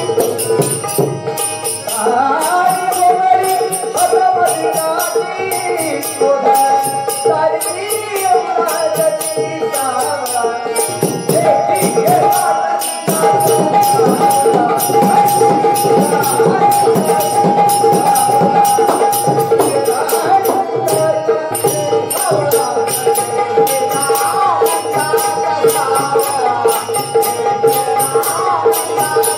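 Marathi gaulan devotional song: a voice sings a wavering melody over a steady held drone, with jingling hand percussion keeping a quick, even beat.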